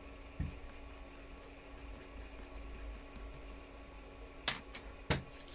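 Faint, quick scratching strokes of a pastel pencil hatching on paper, about four or five a second, for roughly the first three seconds. Then two sharp clicks, about half a second apart, as the pencil is handled and set down.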